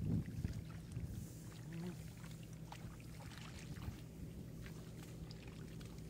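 Shallow muddy water splashing and sloshing as fish thrash in it and hands grab at them, with a louder splash right at the start and small splashes and drips after, over a low steady rumble.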